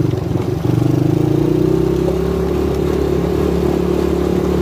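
250cc Lida ATV engine running under throttle. The note dips briefly about half a second in, then climbs gradually and holds steady as the quad accelerates.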